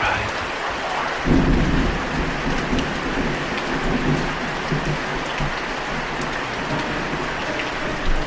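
Steady heavy rain, with a low rumble of thunder starting about a second in and rolling on.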